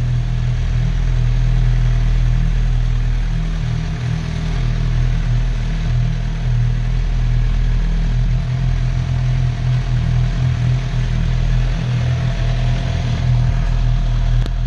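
Wind buffeting the microphone of a GoPro Hero4 Session action camera: a loud, continuous low rumble that flutters irregularly.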